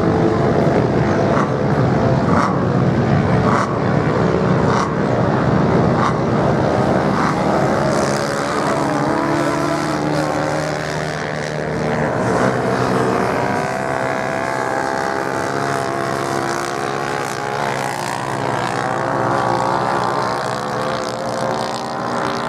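Several racing motorcycles' engines running at once, revving as they race on the sand, their pitches rising and falling as they accelerate and pass.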